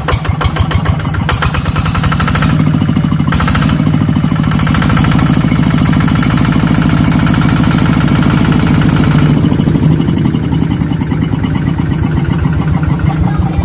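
Small engine of a modified toy boat running with a rapid, even putt-putt. It runs smoother and steadier through the middle stretch, then turns choppier again.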